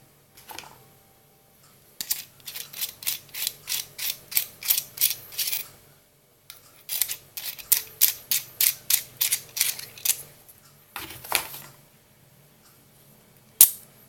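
A tactical pen being worked by hand: two runs of quick mechanical clicks, about three a second, then a short rattle and one sharp click near the end.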